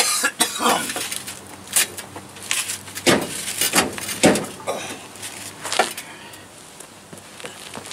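A steel Class 3 receiver hitch being pushed up against a pickup's frame rails, knocking and scraping irregularly, with short grunts of effort from the man lifting it. The knocks die away about six seconds in as the hitch settles into place.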